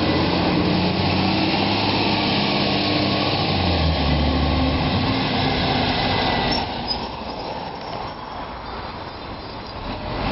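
Iveco Acco garbage truck engine running, its note shifting in pitch partway through, then dropping away and much quieter about two-thirds of the way through.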